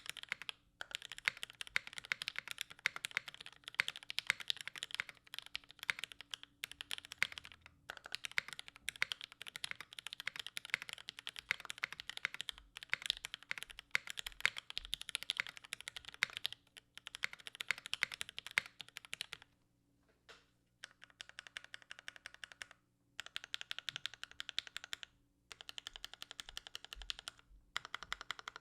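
Fast, continuous typing on a Noxary Vulcan Pro mechanical keyboard: linear Tealios switches with Cherry top housings on an aluminum plate, under GMK doubleshot keycaps, in dense runs of keystrokes broken by short pauses. The dual-gasket mount gives an even, consistent keystroke sound.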